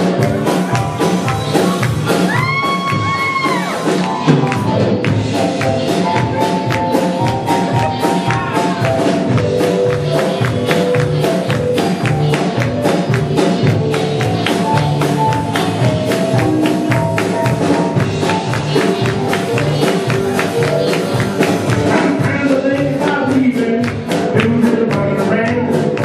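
Live rock band playing loud with a steady drum beat, guitars and keyboard. A high held note bends about two to four seconds in.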